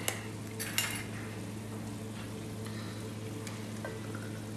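Onion-and-spice masala frying in a pot with a steady sizzle as thick coconut milk is spooned in. A few sharp clicks of a metal spoon against the can and the pot come in the first second, with fainter knocks later on.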